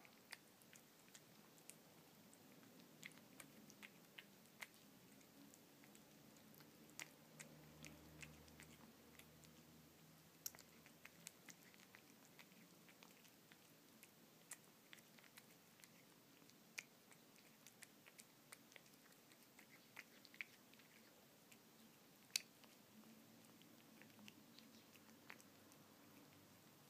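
A cat chewing soft canned fish: faint, irregular wet clicks and smacks from its mouth, with one louder click about twenty-two seconds in.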